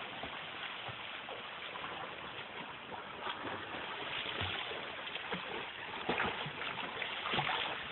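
A child swimming in a pool, her arm strokes and kicks splashing the water steadily.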